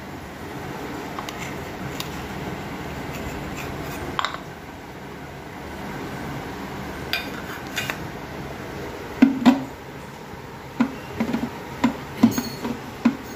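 Stainless-steel bowl and mixer-grinder jar clinking and knocking: scattered light clinks, two sharp knocks about nine seconds in, and a quick run of knocks near the end as the jar is set onto the mixer base.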